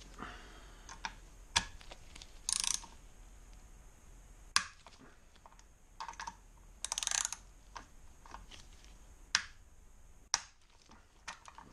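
Hand socket ratchet clicking in two short rapid bursts, once early and once past the middle, as small bolts are loosened on an engine's cylinder head. Single sharp clicks of steel tools against metal fall in between.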